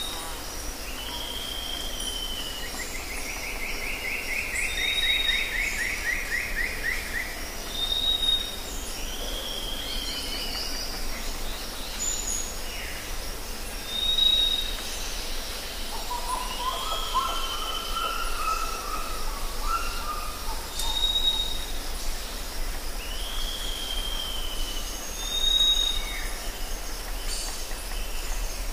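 Forest ambience of several birds calling over a steady high hiss. A short high whistle comes back every few seconds among arching calls, with a long trilled call near the start and a lower warbling call around the middle.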